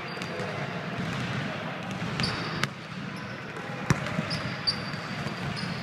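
A basketball bouncing on a gym court floor, a few separate thuds with the loudest about four seconds in, amid short high squeaks of sneakers in the echoing hall.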